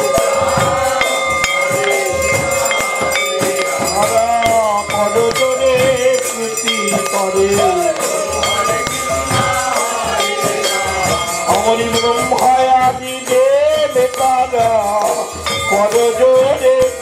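Devotional kirtan music: khol clay barrel drums beaten in a busy rhythm, with jangling metal hand percussion and voices singing a chant over it.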